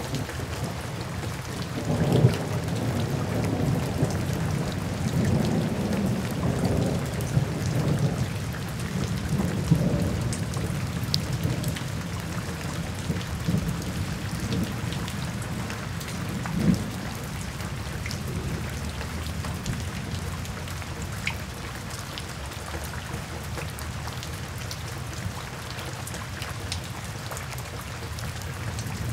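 Rain falling steadily onto a wet paved path, drops splashing on the surface. A low rumble swells and fades through roughly the first ten seconds.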